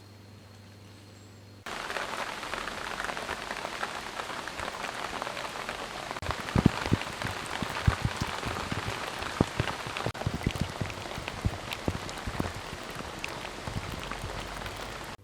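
Steady rain pattering on a surface, cutting in suddenly about two seconds in, with louder drops knocking close by from about six seconds on.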